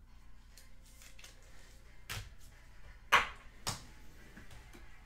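Three sharp knocks over about a second and a half, the middle one the loudest, against faint room tone.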